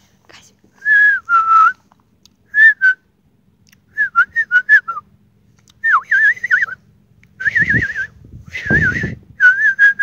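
A person whistling in short warbling phrases with pauses between them, the phrases coming closer together in the second half. A low rush of noise sits under two of the later phrases.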